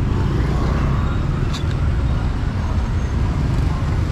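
Street traffic with motorbikes and cars passing close, a steady low rumble, and one brief click about a second and a half in.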